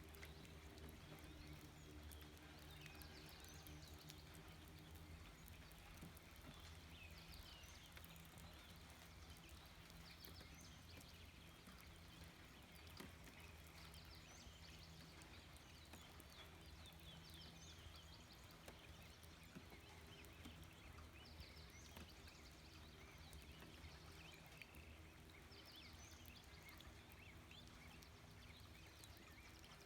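Faint nature ambience: a low steady hum, with short clusters of high chirps every few seconds.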